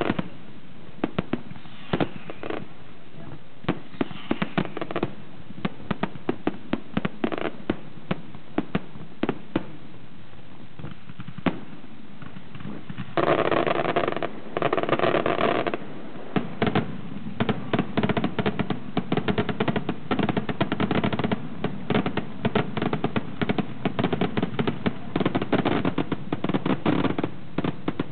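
Aerial fireworks display: firework shells bursting in a string of sharp bangs and crackles. About 13 seconds in comes a denser, louder stretch of crackling, followed by a fast, closely spaced volley of bangs through most of the second half.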